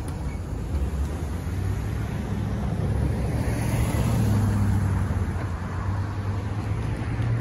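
Road traffic: cars and a pickup truck driving across the railroad crossing one after another, their engines and tyres passing close by over a steady low rumble that swells around the middle.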